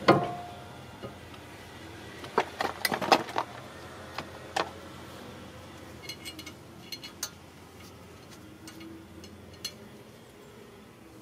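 A new vented front brake rotor is pushed onto the hub studs of a 2012 Hyundai Tucson: a sharp metal knock with a short ring from the disc. A run of metal clinks follows a couple of seconds in, then lighter scattered ticks as the rotor and hub hardware are handled by hand.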